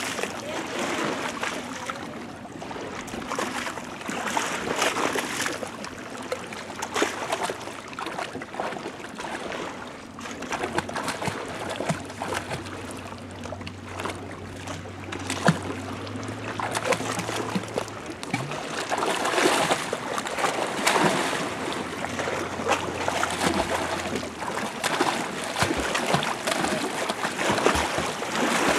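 Lake water splashing and sloshing irregularly as an Irish Setter wades, paws at the water and plunges its head in after fish. The splashes grow busier and louder in the second half.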